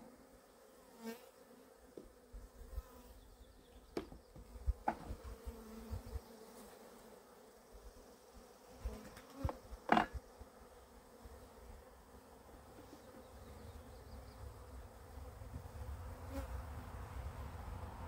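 Honeybees buzzing around an opened hive, a steady hum from a colony that is getting a little wild. Over it come several clicks and knocks of a hive tool and wooden frames being pried and lifted, the loudest about ten seconds in, and a low rumble builds near the end.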